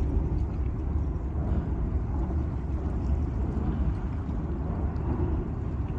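Wind buffeting the microphone: a steady, deep rumble.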